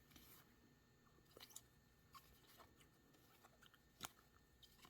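Near silence, with a few faint ticks and rustles of trading cards being handled and shuffled.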